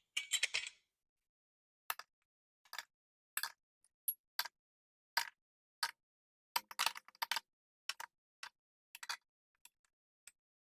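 Gladiator loop hooks clicking and knocking as they are inserted into and slid along the slot of a GearTrack wall panel: irregular light clicks, about one or two a second, with small flurries near the start and about seven seconds in.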